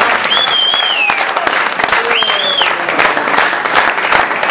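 Audience applauding steadily. Two shrill whistles cut through it, the first about half a second in and falling away at its end, the second about two seconds in.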